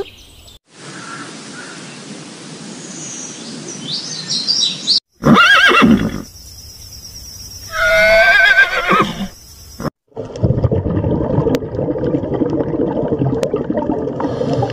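Horse whinnying twice: a loud call about five seconds in and a longer, wavering one about eight seconds in. Before it is a few seconds of steady hiss, and after it a steady, noisy rumble with a few faint clicks.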